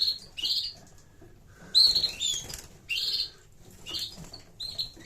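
Young canaries chirping in a cage: a string of short, bright calls, some with quick rising and falling notes, mixed with the flutter of wings.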